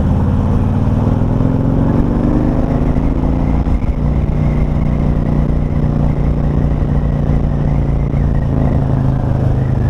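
Harley-Davidson CVO motorcycle's V-twin engine pulling under acceleration, its pitch rising over the first couple of seconds, then settling into a steady cruise.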